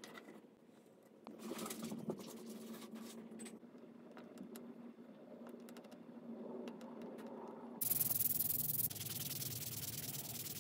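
Faint scratching and small clicks of a hobby knife and pin working a small carved wooden lure, then, about eight seconds in, a much louder steady rasp of sandpaper rubbed over the wood.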